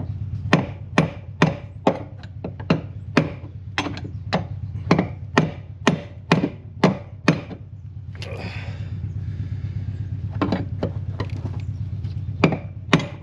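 Hammer tapping a punch to turn the fuel pump module's lock ring into place on the tank, a steady run of sharp strikes about two a second. After a pause with a brief scrape, a few more strikes come near the end, over a steady low hum.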